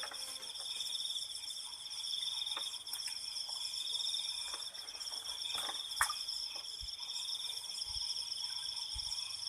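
Crickets chirring in a steady, high-pitched chorus, with a couple of faint sharp clicks, the clearest about six seconds in.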